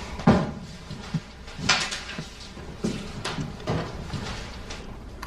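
Scattered knocks and clinks of dishes and takeout containers being handled on a table during a meal, a few sharp taps about a second apart.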